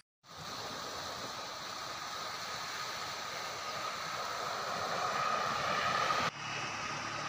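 Steady outdoor rushing noise of wind and flowing floodwater, slowly growing louder. It cuts off abruptly about six seconds in and is followed by a quieter, lower noise with a faint hum.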